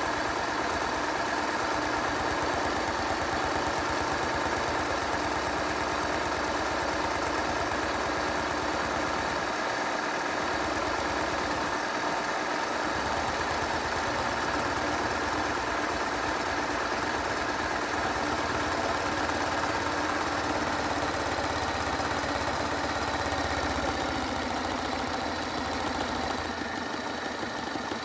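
Hoover washing machine running its rinse and spin cycle: a steady motor whine over a low drum hum, easing slightly near the end.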